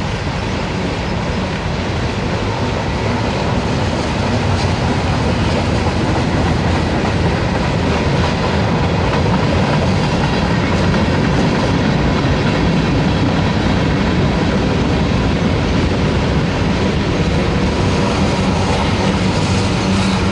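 Mixed freight train of tank cars, gondolas and boxcars rolling steadily past, steel wheels running over the rails in a continuous loud rumble.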